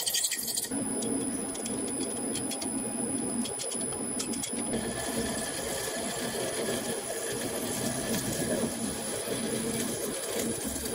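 Lathe spindle running while the tool turns a nylon tube: a steady low hum with a thin high whine over it. Light ticking from about one second in to about four and a half seconds in.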